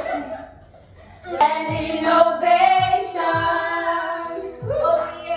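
Background music: a song with long held sung notes over a steady thumping kick-drum beat, starting about a second and a half in.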